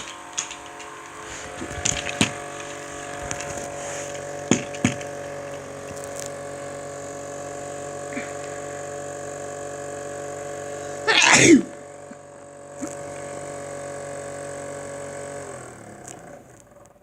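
Homemade 12-volt box fan's electric motor running with a steady hum, among several knocks and clicks of handling and one loud brief scrape about eleven seconds in. Near the end the motor is switched off and its hum drops away as it winds down.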